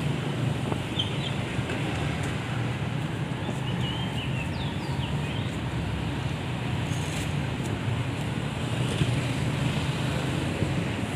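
Steady low rumble of city traffic with wind on the microphone, and short high chirps now and then.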